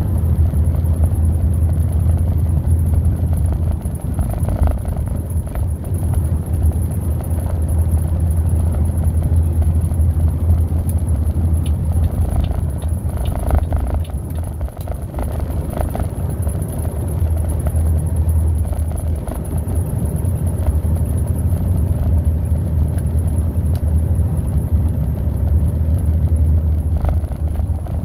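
Steady low drone of a vehicle cruising at highway speed, engine and tyre road noise heard from inside the cab.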